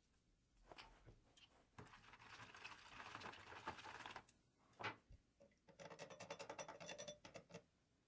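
Liquid poured into a plastic tub, hissing and splashing faintly for a couple of seconds. A single knock follows, then a quick run of rapid ticking taps.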